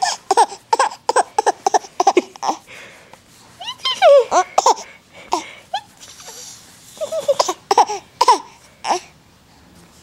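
Baby laughing while being tickled, in quick runs of short laughs, with a long, high squealing laugh about four seconds in.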